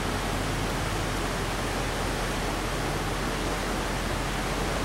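Steady rush of a shallow stream running over rocks.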